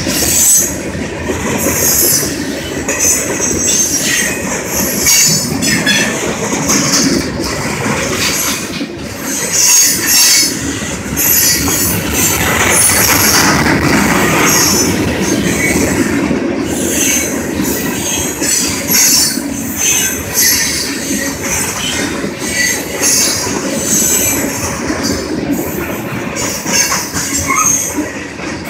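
BNSF freight train's hopper cars rolling past at speed: a continuous rumble and clatter of steel wheels on the rails, with a hissing, screeching high end that comes and goes.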